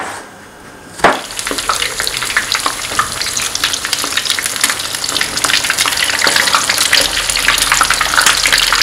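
A single sharp knock of a knife on a cutting board, then from about a second in, stuffed aubergine slices frying in hot extra-virgin olive oil: a dense, steady sizzle and crackle, with small clicks as the slices are turned in the pan.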